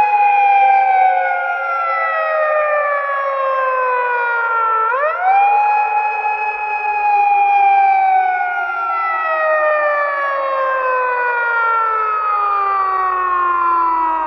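A siren wailing with several pitches sounding together. Its pitch slides slowly down, climbs quickly again about five seconds in and holds, then slides down slowly for about seven seconds before climbing once more at the very end.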